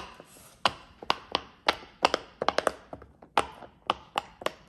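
Silicone pop-it fidget toy being pressed bubble by bubble: a quick, uneven series of sharp little pops, a few each second.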